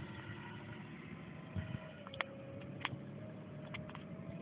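Isuzu Rodeo SUV engine running faint and steady while the vehicle drives slowly off-road over rough ground, with a few short sharp clicks around the middle.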